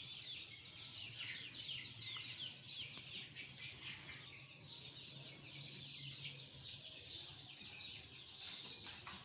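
A flock of chickens calling: many short, high peeping and clucking calls overlapping continuously, with a faint low steady hum underneath.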